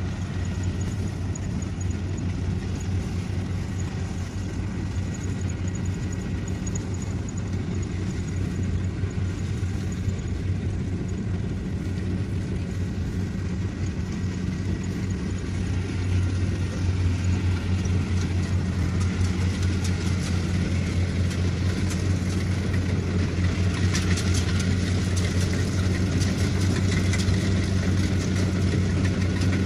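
Kubota rice combine harvester's diesel engine running steadily with a low drone as it cuts and threshes, growing louder about halfway through, with a faint rattle over it in the later part.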